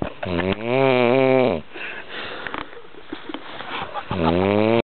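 A person snoring: one loud snore lasting just over a second, a quieter breathing gap, then another snore near the end that cuts off suddenly.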